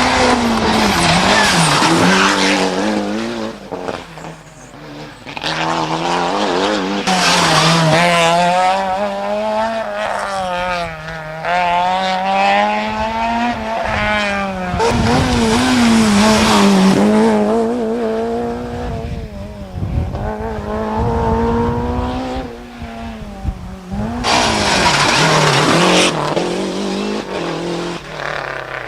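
Rally cars at full stage speed: engines revving hard, the pitch rising and falling again and again with gear changes and lifts, with tyre noise against the road surface.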